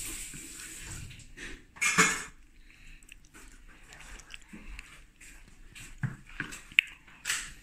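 Spoon and fork scraping and clicking on a plate as someone eats, with a few sharp clinks near the end. There is also a short, loud rushing noise about two seconds in.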